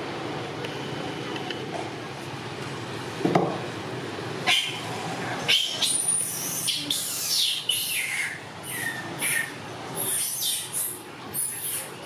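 Macaques giving a rapid run of shrill squeals, many falling in pitch, starting about four and a half seconds in over a low steady background. A single thud comes about a second before the squealing starts.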